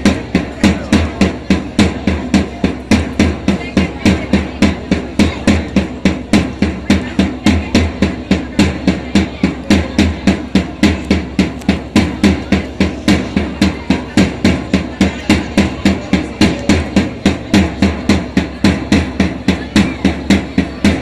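Fast, even percussion beat of dance accompaniment, about three hits a second, each hit with a low tone under it.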